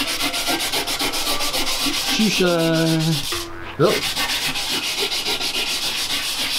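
A strip of worn sandpaper worked back and forth by hand, shoe-shine style, across a wooden door's edge in quick, even rubbing strokes to smooth out cross-grain scratches. The rubbing breaks off briefly about halfway, then picks up again.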